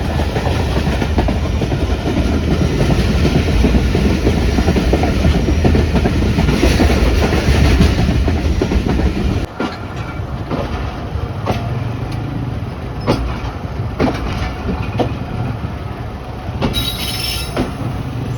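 Moving passenger train heard from on board: a loud, dense rumble of wheels and running gear. About halfway through it changes suddenly to a quieter run with sharp clacks about once a second as the wheels pass over rail joints, and there is a brief high-pitched noise near the end.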